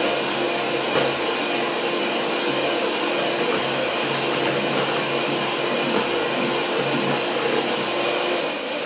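Electric hand mixer running steadily, its beaters whipping cream and sugar in a bowl; it stops at the very end.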